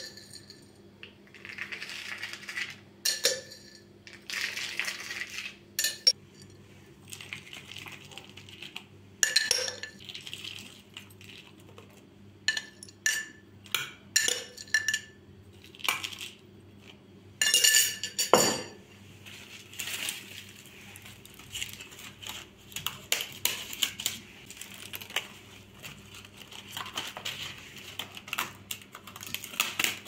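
Metal spoon clinking and scraping against a glass baking dish as chopped walnuts are spooned out and scattered over soaked güllaç sheets, with many sharp, short ringing clinks. Between the clinks there is soft rustling as the thin sheets are handled and pressed down.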